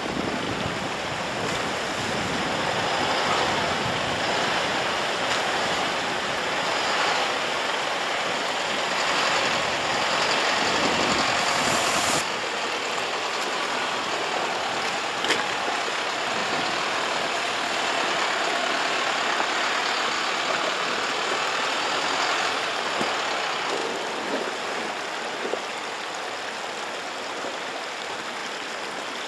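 Mercedes-Benz Unimog U 4023's four-cylinder diesel engine running at low speed as the truck crawls over rocks through a shallow stream, mixed with the stream's rushing water.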